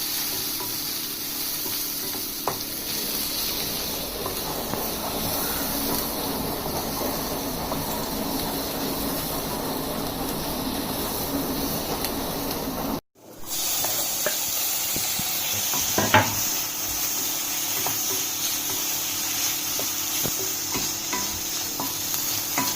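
Sliced onion sizzling in olive oil in a pan while being stirred and tossed, with occasional sharp clicks of the utensil against the pan, the loudest about 16 seconds in. The sizzle breaks off abruptly for a moment about 13 seconds in, then resumes.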